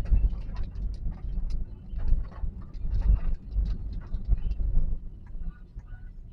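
Road rumble of a moving Toyota Calya heard inside the cabin, with many irregular light clicks and taps over it.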